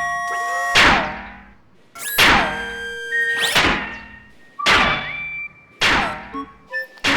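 A string of comic cartoon sound effects: about six sharp hits roughly a second apart, each followed by a ringing tone that falls in pitch.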